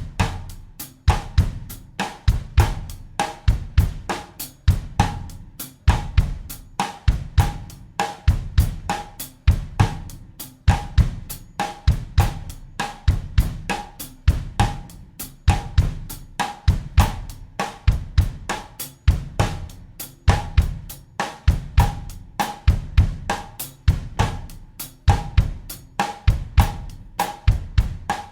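Acoustic drum kit playing a steady bossa nova groove at 100 beats per minute in 4/4: even, quick cymbal strokes over a repeating bass drum pattern with snare accents.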